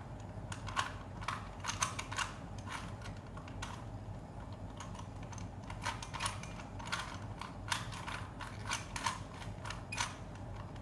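A 3x3 Rubik's cube being twisted quickly by hand while it is being solved: irregular clicks and clacks of the plastic layers turning, a few a second.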